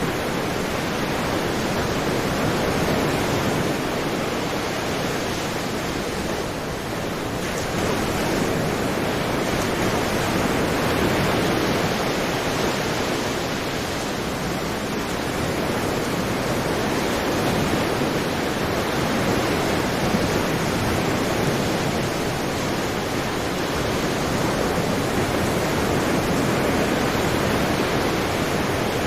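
Sea surf washing continuously, a steady rushing wash that swells and eases gently every few seconds.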